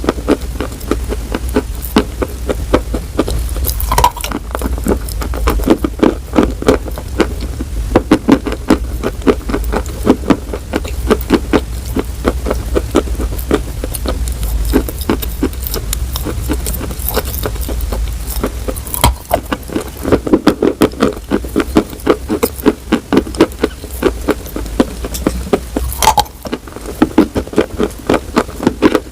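Close-miked ASMR chewing of crunchy food: a steady run of quick crunches, several a second, with a few sharper cracks among them.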